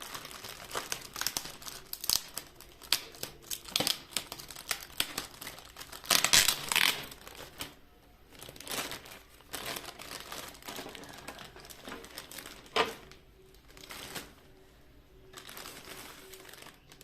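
Plastic packaging crinkling and rustling as a car speaker is pulled out of its packet, in irregular crackles with a louder burst about six seconds in and quieter handling after.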